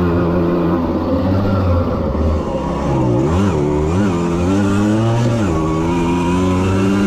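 Small two-stroke racing moped engine running hard, its revs dipping and climbing back about three times in the middle as the throttle is eased and opened again, then holding steady at high revs.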